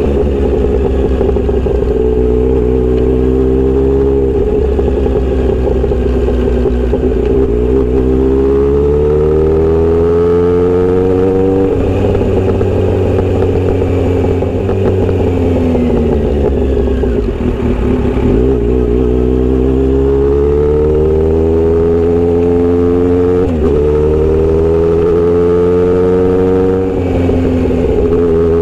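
Kawasaki Z900RS inline-four running through a short steel aftermarket exhaust while riding. The engine note climbs under acceleration and drops sharply at gear changes, about three times, with a brief easing off near the middle.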